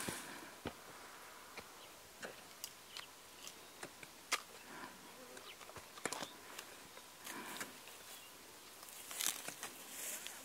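Quiet outdoor ambience in a dry grassy field, with scattered faint clicks and rustles and a short, louder patch of rustling near the end.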